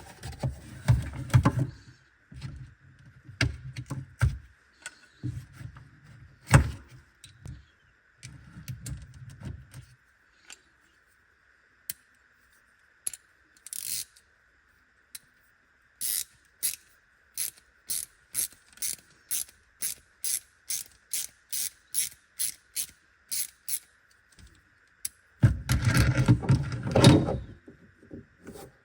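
Handling and knocking noises, then a run of evenly spaced ratchet-like clicks, about two a second for some eight seconds past the middle, and another bout of handling noise near the end.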